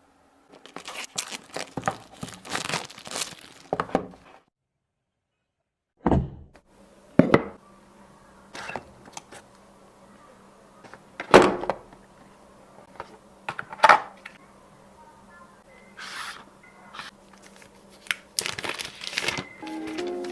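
Smartphone retail box being unboxed by hand: packaging rustling and tearing, then a series of separate knocks and thunks as the box and its contents are handled.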